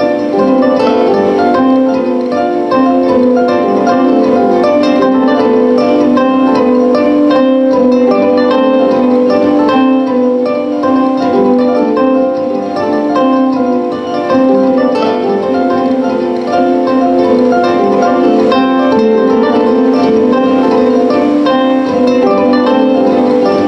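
Live solo instrumental music: a dense, continuous stream of short plucked-sounding notes.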